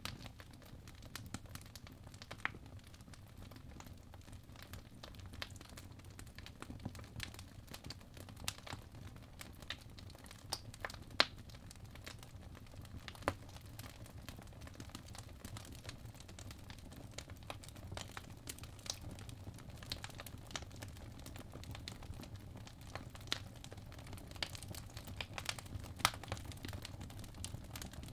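Apple Pencil tip tapping and scratching on an iPad's glass screen while drawing: sparse, irregular light clicks over a faint low hum, with one sharper tap about eleven seconds in.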